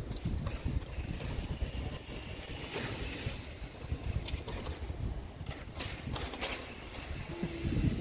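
Wind buffeting a phone's microphone outdoors: a low, uneven rumble with a few faint clicks.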